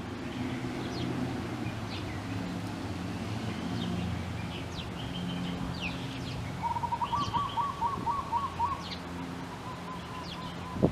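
Wild birds calling: scattered short, sharp high chirps throughout, and about two-thirds of the way in a rapid lower trill of about ten notes that trails off faintly. A steady low hum runs underneath.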